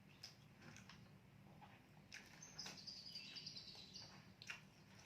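Quiet chewing with small mouth clicks and smacks from eating rice and side dishes, and a bird twittering briefly in the middle.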